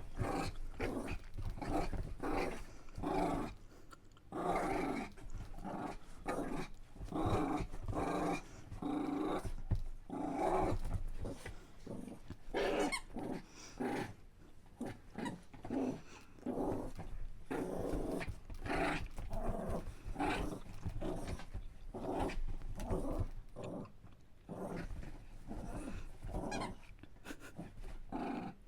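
Dog growling in play, a long string of growls broken by short pauses.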